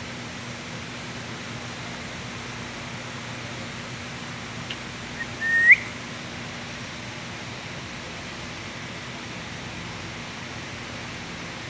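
Steady background hiss with a faint low hum, broken once, a little over five seconds in, by a short high whistle-like chirp that rises in pitch, just after a faint click.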